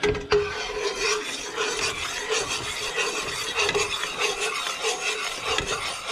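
Metal spoon scraping and stirring around a stainless steel pot of boiling, foaming dandelion sugar syrup, in a steady rhythm of about two to three strokes a second over the fizz of the bubbling syrup. The syrup is being boiled down into thick dandelion 'honey'.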